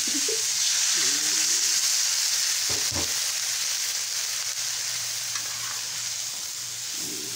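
Vegetables stir-frying in a hot wok, sizzling loudly just after a splash of water is added, the sizzle slowly easing off. One knock sounds about three seconds in.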